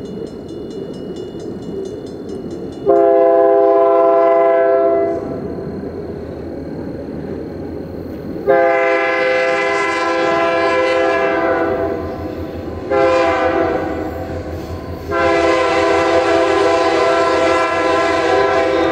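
Multi-note air horn of a Canadian Pacific SD40-2 diesel locomotive sounding the grade-crossing signal: long, long, short, long. Under the horn, the rumble of the approaching locomotives grows louder near the end.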